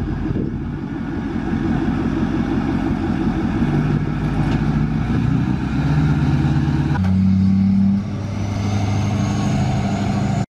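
Straight-piped Power Stroke diesel of a lifted Ford F-350 driving past under load, pulling a trailer carrying two pickups; the engine note steps up and down several times, with a faint high whine rising near the end.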